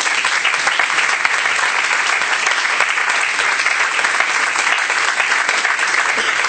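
Audience applauding: many people clapping steadily in a dense, loud patter.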